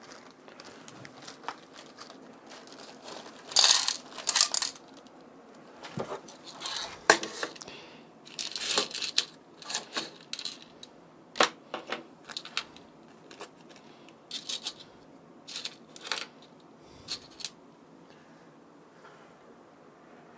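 Small screws and a steel PC case being handled while a power supply is screwed in: irregular sharp metallic clicks and clinks, with a few louder rustling scrapes, the loudest about four and nine seconds in.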